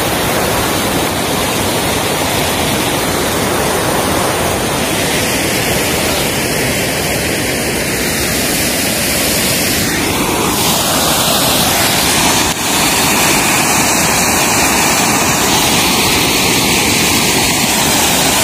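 Rain-swollen, muddy water rushing and churning at a brimming dam: a steady, loud rush of water.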